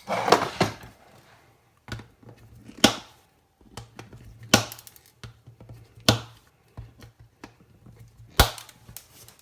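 Cutters snipping off small plastic tabs inside a plastic enclosure: a series of sharp snaps, five loud ones spaced a second or so apart, with fainter clicks and handling between.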